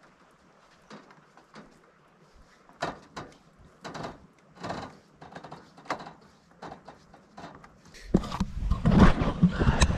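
Irregular knocks and clatters from the slatted deck of a cable suspension footbridge as a loaded tandem bicycle is walked across it. About eight seconds in, a much louder low rumble takes over.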